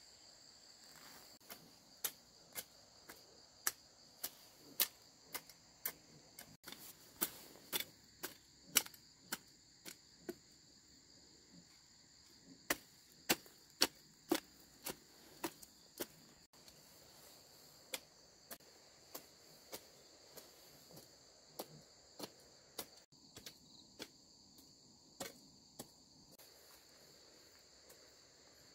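Hand hoe chopping into dry garden soil, sharp strikes at about two a second that stop near the end, over a steady high-pitched insect chorus.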